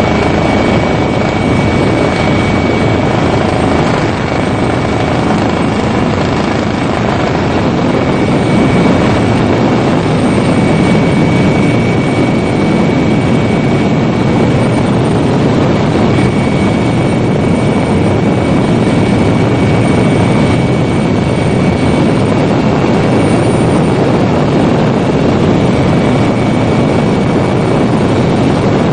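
Helicopter running steadily, heard from on board: a dense, unbroken rotor and engine noise with a faint, steady high whine running through it.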